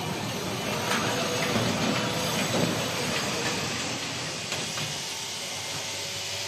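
Zhicheng Y8-160 automatic fabric spreading machine running as it travels along the cutting table laying cloth: a steady mechanical running noise with a few faint clicks.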